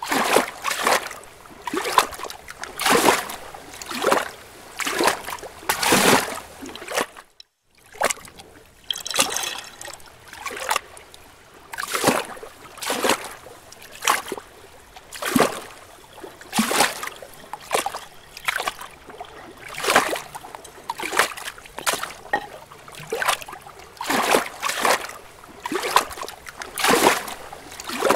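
Pool water splashing and sloshing around a waterproof camera housing as it is dipped in and out of the water, in repeated surges about once a second, with a brief drop to silence about seven seconds in.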